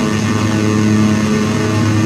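Handmade square-wave drone synth (METSÄÄN Dirty Drone Defrost) sounding a steady, loud, low buzzing drone built from pairs of slightly detuned square-wave oscillators, which beat against each other and make the sound shift slowly across the stereo field.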